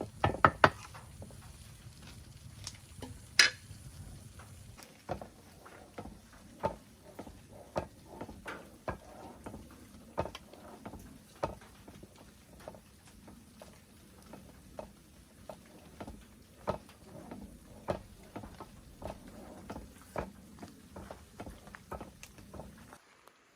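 A kitchen utensil clinking and tapping against cookware, as in stirring or handling a pot, with irregular light knocks about one or two a second and one louder knock about three seconds in.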